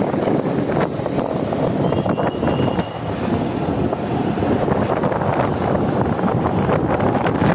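Steady wind rush over the microphone on a moving motorcycle, mixed with the motorcycle's engine and road noise.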